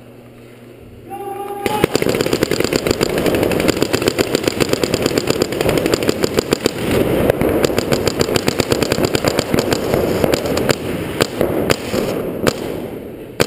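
Many paintball markers firing rapid strings of shots at once, a dense constant crackle that starts about a second and a half in, just after a short beep-like tone: the opening volley at the start of a paintball game.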